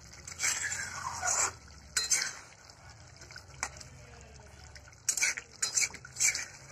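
Spatula scraping and knocking against a cooking pan while stirring a thick fish curry, in two bursts: through the first second and a half and again near the end, with a single knock in between.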